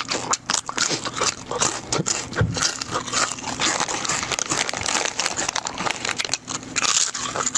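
A bag of nacho cheese chips crinkling and chips being loudly crunched and chewed, a dense run of crackles.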